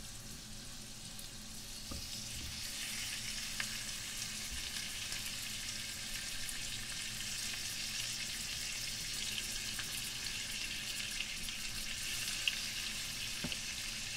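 Beef short ribs sizzling in hot oil in a skillet as they brown: a steady frying hiss that grows louder about two seconds in, with a few small pops, the sharpest near the end.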